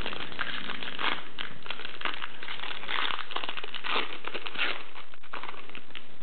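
Shiny foil wrapper of a trading-card pack crinkling and crackling as it is handled and opened.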